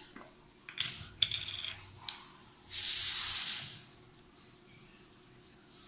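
Small glass salt jar being handled and opened: a few light clinks and knocks, then about a second of loud scraping hiss as the lid comes off.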